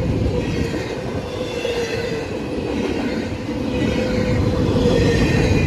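Freight train rolling past: the steady, continuous noise of railcar wheels on the rails, with a steady, slightly wavering hum running through it.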